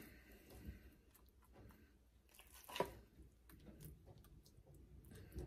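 Faint soft squishing of a soaked bread mixture being spooned into a metal baking pan, with a few light clicks of the metal spoon against the pan, the sharpest a little under three seconds in.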